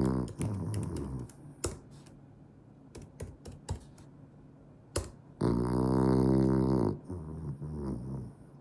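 French bulldog snoring in its sleep: a low snore tails off about a second in, a longer, louder one comes about five and a half seconds in and is followed by a softer one. Short clicks fall in the quiet between the snores.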